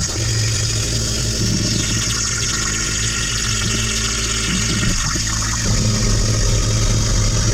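CNC plasma torch cutting 1/4-inch steel plate: a steady hiss of the arc and cutting air, with a steady low hum underneath.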